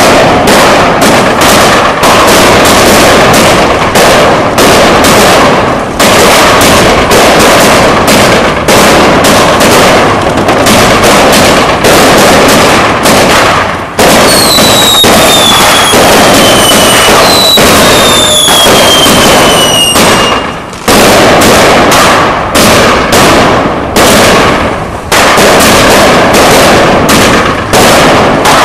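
Weco Big Crackles firework batteries, fired two at once, going off in a dense, unbroken run of sharp launch shots over continuous crackling. Two falling whistles sound about halfway through.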